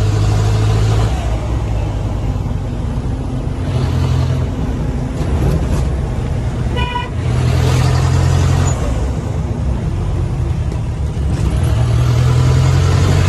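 A Mahindra jeep's turbo-diesel engine running on the move through an exhaust with its muffler taken off, the engine note strengthening and easing in turn. A short horn toot sounds about seven seconds in.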